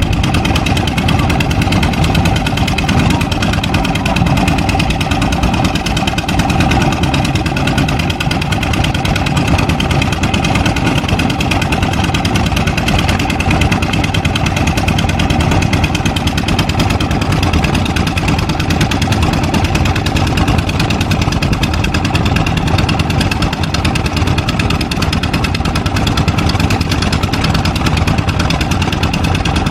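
Kobelco SK200 excavator's diesel engine running steadily under working load, with a fast even beat and no pauses.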